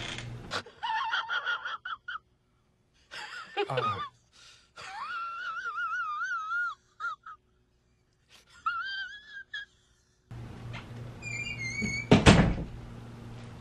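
A high, wavering, voice-like wail in several short phrases with silences between. Then room hiss and one loud thump about twelve seconds in.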